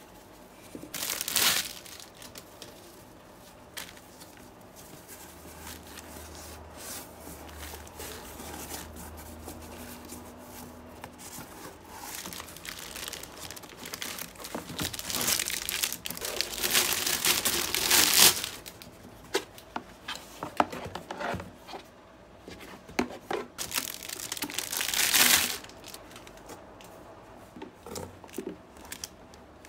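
Plastic packaging wrap crinkling and rustling as items are unpacked from a cardboard box, in several bursts: a short one near the start, a longer one about halfway through and another near the end, with small clicks between them as the plastic boxes are handled.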